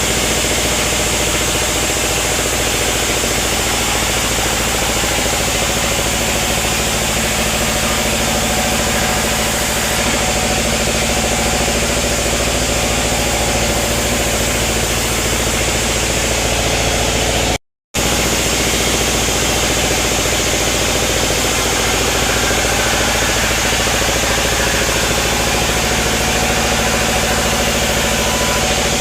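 Sawmill machinery running steadily: a dense, even mechanical noise with a constant hum. It drops out for a moment about two-thirds of the way in.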